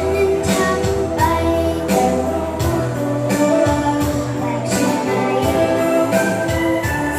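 Music with a steady beat and a singing voice.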